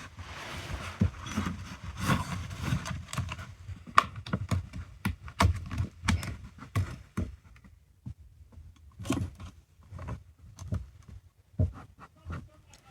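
The plastic and rubberized shell of a Bluetooth speaker being pulled off by hand: scraping and rubbing for the first few seconds, then irregular clicks and knocks as the casing parts loosen and are handled.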